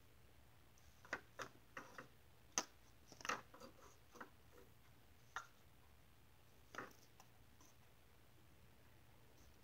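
Light clicks and taps of small plastic toys being handled, a toy bucket and toy horse moved about by hand: a scattered run of short taps over the first seven seconds, then quiet handling.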